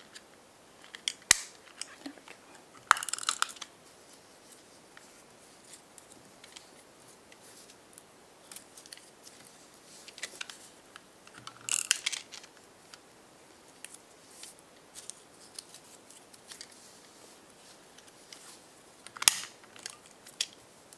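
Handheld double-sided tape dispenser clicking and rasping in short bursts a few seconds apart as tape is drawn off and cut, with paper handled between. The dispenser is noisy.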